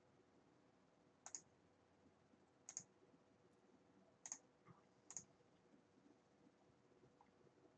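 Four faint clicks of a computer mouse, each a quick press-and-release pair, spaced about one to one and a half seconds apart.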